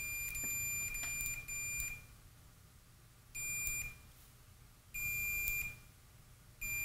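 Continuity beeper of an Agilent handheld multimeter, probes on a UPS power transformer's winding. It sounds a steady high beep for about two seconds with brief breaks, then cuts in and out three more times as the reading jumps. The owner takes this for an open connection inside the transformer.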